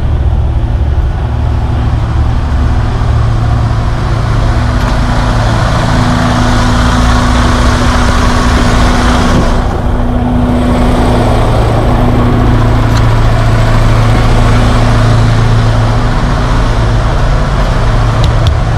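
Semi-truck diesel engine idling steadily: a continuous low hum with a steady hiss over it.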